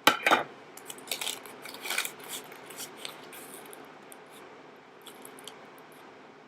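Pipe tobacco tin being opened and handled: a couple of sharp metallic clicks right at the start, then a run of clicks and crinkling rustles that thins out to occasional small ticks.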